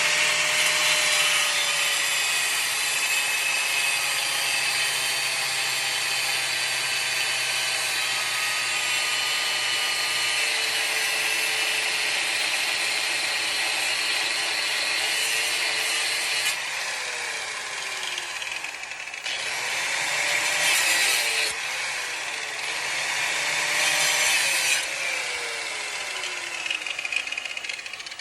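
Handheld power tool cutting into a rusted, seized threaded pump connector, its motor running continuously. The motor's pitch dips and recovers several times as it bites into the metal.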